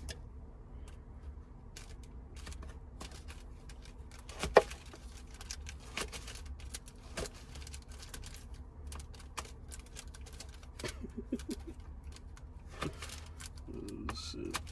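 Knife clicking and tapping irregularly while cutting fruit, with one sharper knock about four and a half seconds in, over a low steady hum.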